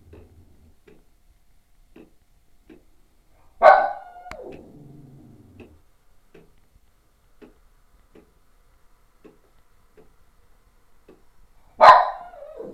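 A 3D-printed clock ticking faintly, about two ticks a second. Twice, about eight seconds apart, a much louder sudden sound cuts in, each falling in pitch and dying away over about a second.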